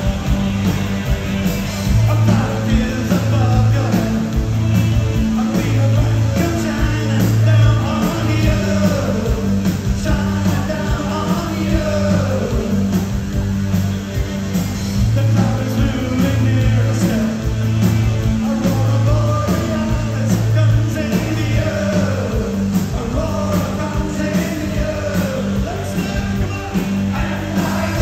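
Live new wave rock band playing a song, with lead singing over a steady bass line and a regular drum beat.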